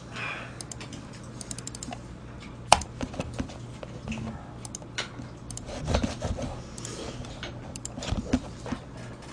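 Computer keyboard and mouse clicking in an irregular run of taps, with one sharp click about three seconds in and a couple of duller knocks later.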